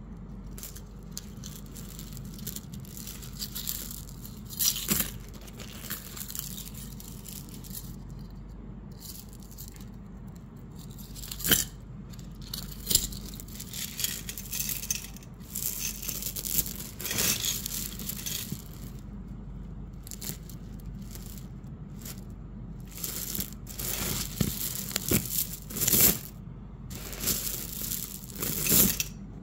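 Faceted glass crystal beads on gold-tone metal links clinking and rattling against each other as the necklace strands are handled and shifted on a cloth, in irregular bursts with a few sharper clicks. A faint steady low hum lies underneath.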